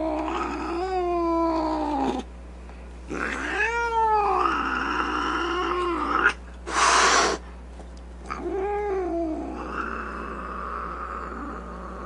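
Domestic cat yowling: three long, drawn-out meows that rise and fall in pitch, the first already under way at the start. A short hiss falls between the second and third.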